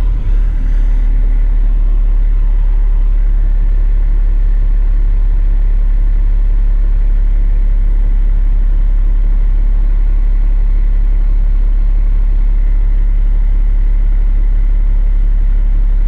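Dump truck's diesel engine running steadily at low revs, a deep, even rumble.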